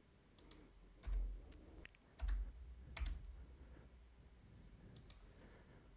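A few faint, scattered clicks of a computer keyboard and mouse, with a couple of dull low thumps about a second in and just past two seconds.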